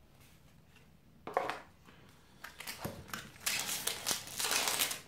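Foil wrapper of a Magic: The Gathering booster pack crinkling as it is handled and torn open. There is a short rustle about a second in, then a longer run of loud crinkling over the last couple of seconds.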